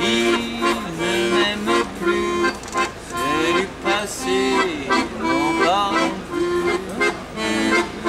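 Accordion playing a French chanson melody over steady held chords, with the player's voice joining in places.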